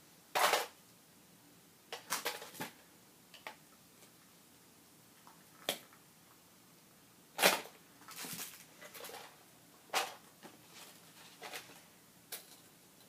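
Packaging of a bicycle chain being handled and pried at in a failed attempt to open it: irregular clicks and knocks with short rustles, the sharpest about half a second in and about seven and a half seconds in.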